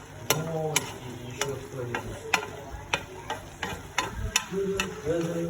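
Plov being stirred in a frying pot: a utensil knocks and scrapes against the pot a dozen or so times at an uneven pace, over the sizzle of frying food.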